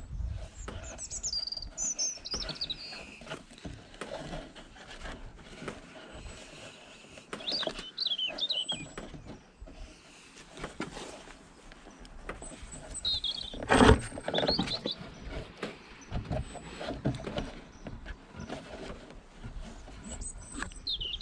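Small birds chirping in short, scattered bursts of high twittering calls. Under them are the soft rustle and scrape of rope being worked through the wood of a pine crate. About two-thirds of the way through there is a single sharp knock, the loudest sound.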